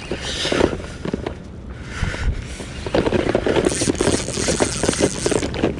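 Shimano 20 Stradic SW spinning reel being cranked on a retrieve, with handling and wind noise on the rod-mounted microphone. The winding grows busier and louder about three seconds in, with a brief hiss over it.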